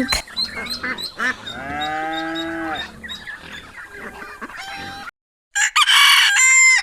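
Farm animal calls: a long drawn-out call about two seconds in, then after a short break a rooster crowing loudly near the end, cut off abruptly.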